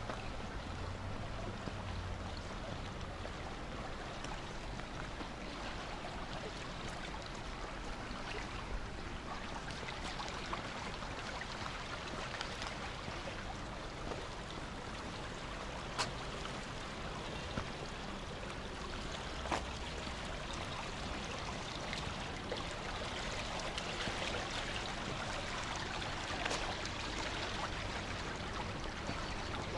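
Steady rush of water flowing along a narrow concrete river channel, with a few sharp clicks about halfway through.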